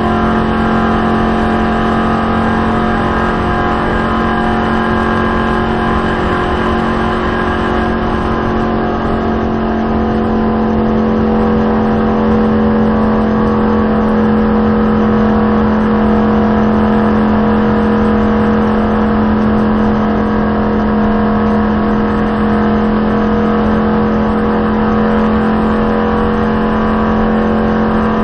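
A stock car's V8 engine holding a steady high pitch at sustained full throttle, heard from inside the cockpit over the rush of wind and road noise. There are no gear changes or lifts.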